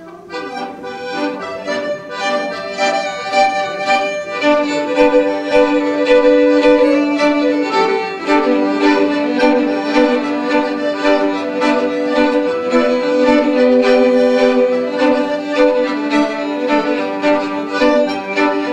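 Fiddle and accordion playing a Cajun two-step together, with long held notes under a quick-moving melody. The music fades in over the first couple of seconds.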